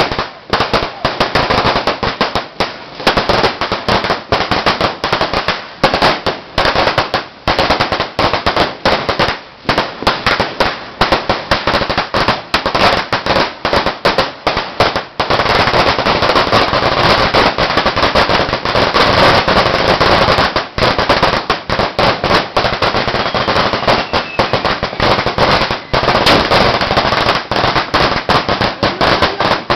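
A 10,000-round firecracker string (a "Sawa") going off in a rapid run of sharp bangs; about halfway through the bangs crowd together into a dense, almost unbroken crackling barrage.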